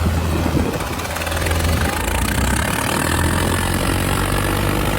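Diesel tractor engine running loudly and steadily, with a strong low drone.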